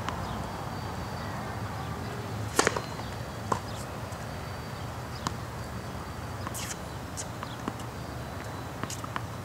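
Tennis ball hit and bouncing on a hard court: one sharp pop about two and a half seconds in, then scattered fainter pops, over steady low background noise.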